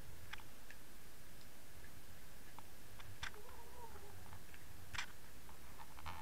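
Underwater sound at a submerged camera: a steady low hiss with scattered sharp clicks, the loudest about three and five seconds in, and a faint wavering tone in between.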